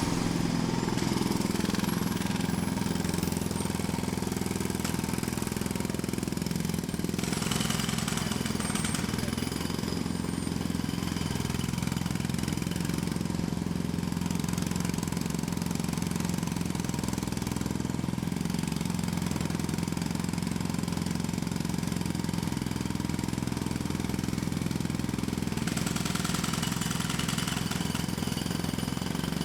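Jackhammer running continuously, a dense steady hammering that cuts in suddenly.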